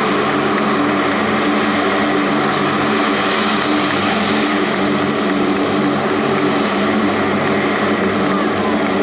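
The four turboprop engines of the Blue Angels' C-130J 'Fat Albert' make a loud, steady propeller drone, with a constant low hum under it.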